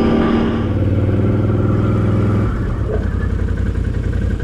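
Quad bike engine running as the machine rolls slowly to a stop, dropping to a rough idle about halfway through.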